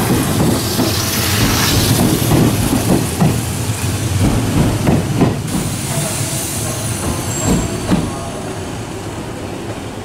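Hanshin electric train cars running close past with their wheels knocking over rail joints in quick runs. After about five seconds this gives way to a quieter rumble of a train rolling slowly along the platform, which eases off near the end.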